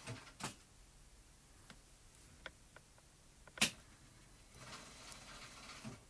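Light clicks and taps of paper pieces and tools being handled on a craft table, with one sharper tap about three and a half seconds in. Near the end a sewing machine runs faintly in the background.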